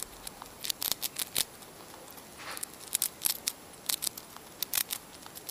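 Digital glitch sound effect for an animated logo intro: a string of short, sharp crackles and clicks at irregular intervals, with a soft swish about halfway through.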